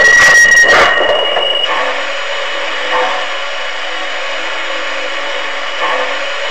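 Model train rolling along its track, its wheels clicking over the rail joints, then coming to a stop about a second and a half in, leaving a steady mechanical hum.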